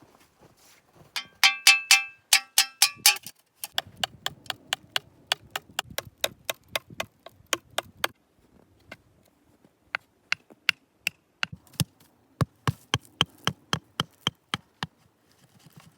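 Fast series of hand-tool strikes. The first strokes carry a brief metallic ringing, then they turn into sharp, dry knocks at about three a second, with a pause around the middle.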